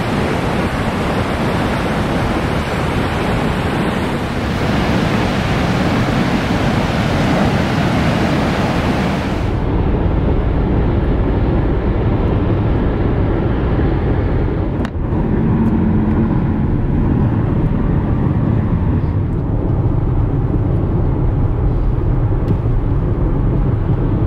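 Ocean surf breaking on a rocky beach, a steady rush of noise, for about the first nine seconds. It then cuts to the low, steady road and engine noise inside a car driving on a freeway.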